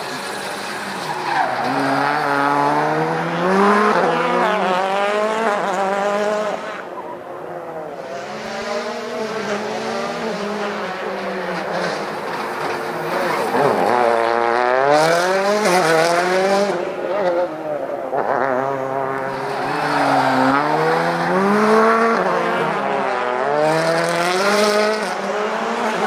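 Rally car engines revving up and dropping back again and again as the cars accelerate, brake and shift through a cone course, with tyres squealing as they slide.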